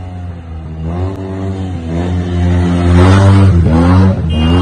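Sport motorcycle engine revving hard as the bike approaches with two riders aboard, getting louder, its note climbing and falling several times as the throttle is worked for a wheelie.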